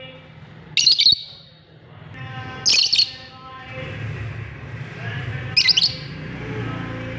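Lovebirds giving sharp, high chirps in three short clusters about two seconds apart, over a low steady hum.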